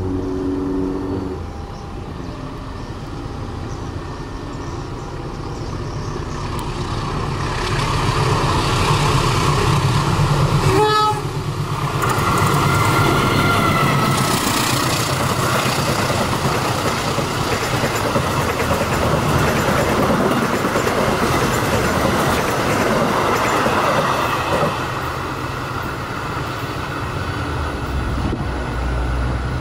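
CC 201 diesel-electric locomotive approaching with its engine running and growing louder, then passing close with a brief horn sound partway through. The coaches follow with a rumble and wheel clatter that eases near the end.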